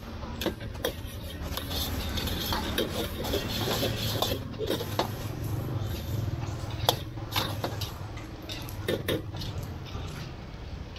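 Metal spatula and ladle scraping and clanking against woks as fried rice is stir-fried: irregular clinks and scrapes, several a second, over the steady low roar of the gas wok burners.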